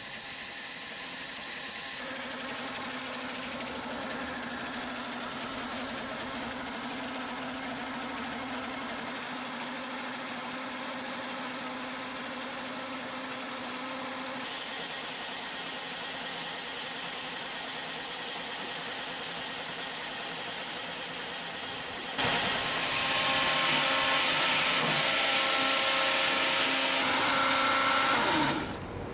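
Wood-cutting machinery running steadily with a constant engine-like drone, changing abruptly several times. It becomes much louder for the last several seconds, then drops away.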